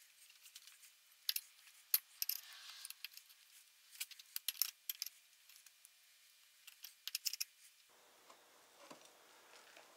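Metal tire lever clinking and scraping against a small steel wheel rim as a turf tire's bead is pried back over the rim, in scattered short clicks with a quieter pause in the middle.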